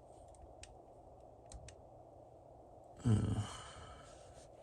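A few faint clicks of small things being handled, then about three seconds in a man's loud sigh, falling in pitch over about half a second.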